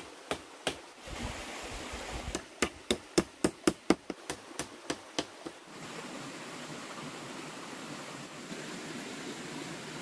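A run of sharp knocks, something struck repeatedly at about four blows a second, stopping a little past halfway. A steady rushing noise follows.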